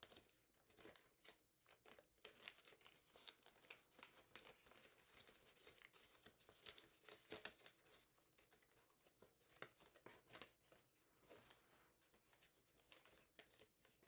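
Faint crinkling and rustling of a sheet of origami paper being folded and flattened by hand, many small irregular crackles.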